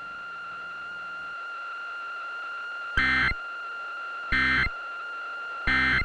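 Three short bursts of EAS SAME digital data tones from a NOAA Weather Radio broadcast, a little over a second apart: the end-of-message code that closes the tornado warning. A faint steady high tone sits underneath.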